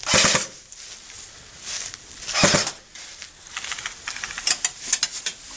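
Airsoft electric rifles firing: a short burst at the start and another about two and a half seconds in, then a run of rapid clicking in the second half.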